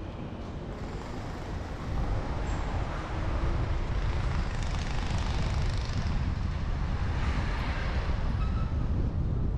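Wind buffeting the microphone over street traffic noise, getting louder about two seconds in.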